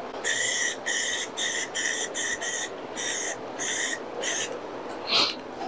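Aerosol spray can of rust converter spraying in short bursts, about nine in quick succession, as the nozzle is pressed and released, with one shorter, louder burst near the end.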